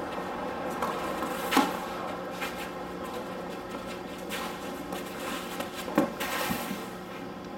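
Tennis rally: a racket strikes the ball several times, with the loudest hits about one and a half seconds in and about six seconds in. A steady low hum runs under it.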